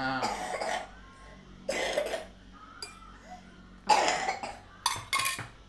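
A person coughing several times, in short sharp coughs spread through, with the last two close together near the end.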